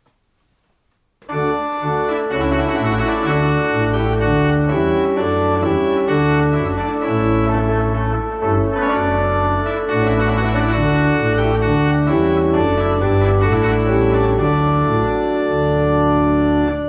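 Electronic organ playing a loud solo melody over a chordal accompaniment on principal stops, with deep bass notes moving underneath. It starts about a second in and holds until the end.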